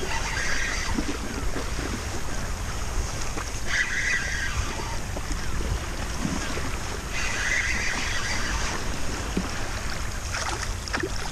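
Wind rumbling on the microphone and small waves lapping against a plastic sit-on-top kayak's hull, with three short, brighter swishes a few seconds apart.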